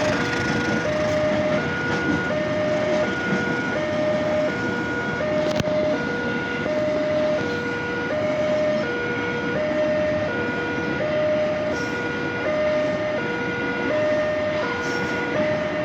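Railway level-crossing warning siren sounding a two-tone alarm, a higher and a lower tone alternating about every 0.7 s, over steady background noise. It signals that a train is approaching the crossing.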